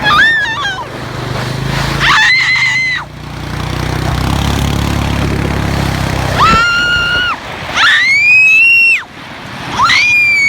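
Several long, high-pitched screams, each held for about a second, four in all. A low steady rumble runs under the first half and stops about two thirds of the way in.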